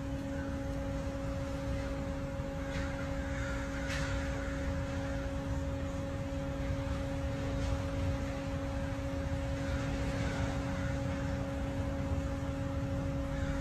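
A steady low hum over a faint noise bed, with faint bird calls a few times.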